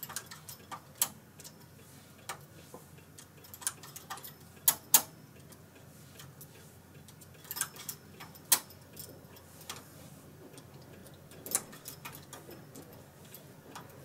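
Irregular light metallic clicks of a hand transfer tool and latch needles on a Brother KH585 knitting machine's needle bed as stitches are moved by hand, with a few sharper clicks about five seconds in and again later.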